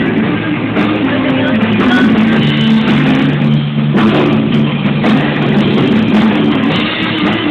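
Rock band playing live at a sound check, drums, bass and electric guitar heard loud and distorted through a phone's microphone.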